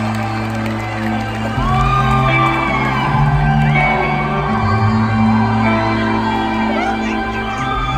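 A live band plays a slow instrumental passage in a large arena, its sustained low chords changing every second or two. Whoops and shouts from the crowd rise over the music.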